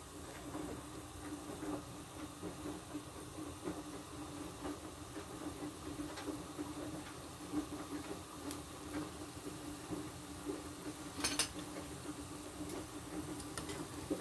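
Pot of soup boiling: steady bubbling with many small irregular pops, and one short sharp click about eleven seconds in.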